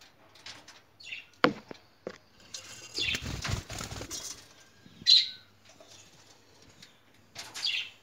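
Pet lovebirds giving short, high chirps a few times, with a couple of sharp clicks and a burst of rustling around three seconds in.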